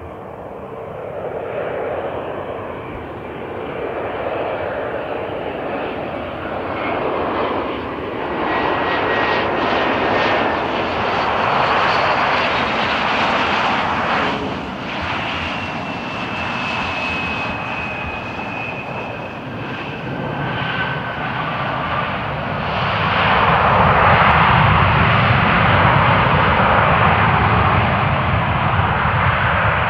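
Twin rear-mounted GE CF34 turbofans of a Mitsubishi (Bombardier) CRJ-702ER regional jet running: a continuous jet roar with a thin turbine whine over it. The roar swells and fades as the aircraft approaches and takes off. It is loudest, with a deep rumble, for the last several seconds.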